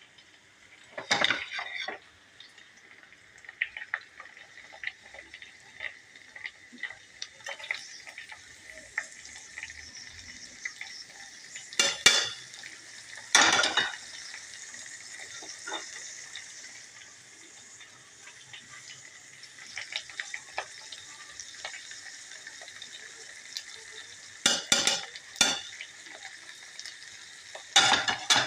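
Food sizzling in a frying pan while a metal spoon stirs it, scraping and clinking against the pan. Louder clanks come about a second in, twice in the middle and in a cluster near the end.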